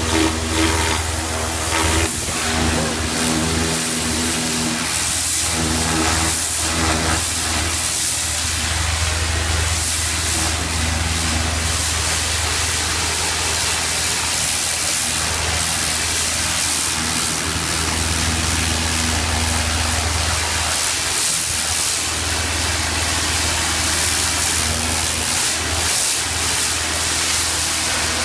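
Pressure washer running steadily, its machine humming under the hiss of the high-pressure water jet spraying onto concrete.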